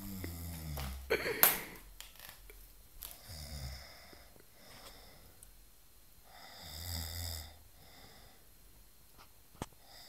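A man snoring in his sleep: three low snores about three and a half seconds apart, each followed by a breathy exhale. A sharp, brief noise comes about a second and a half in.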